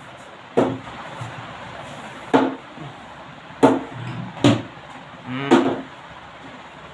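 Plastic cricket ball knocking against a plastic bat and a hard floor: five sharp knocks at uneven intervals.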